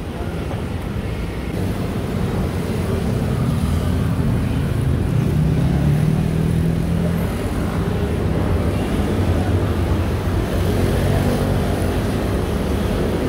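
Busy city street traffic: scooters and cars passing, a steady engine rumble that gets louder a couple of seconds in. A passing engine's hum stands out about halfway through.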